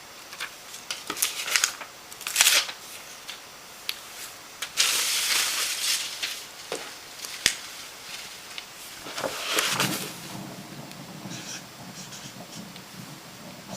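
Close handling noises: irregular rustling and crinkling bursts, one longer stretch of rustle, and a couple of sharp clicks.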